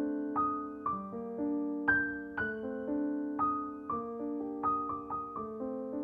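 Slow, gentle piano music: single notes and soft chords struck about twice a second, each ringing on and fading away.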